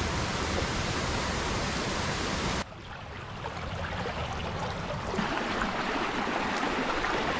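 Strong wind rushing over the microphone as a steady, loud noise. It drops suddenly about two and a half seconds in, then builds back up.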